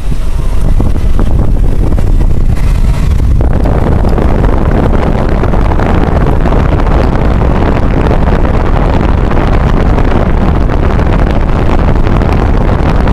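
Car driving on a paved road: a loud, steady rumble of road and wind noise buffeting the microphone, growing fuller about three and a half seconds in.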